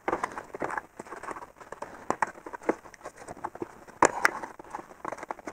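Plastic BMW kidney grille and its clips clicking, knocking and rattling as a gloved hand works them free from the bumper, with two sharper clicks about four seconds in.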